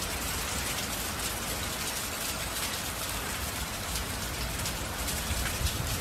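Heavy hurricane rain and wind: a steady, even hiss with no distinct gusts or impacts.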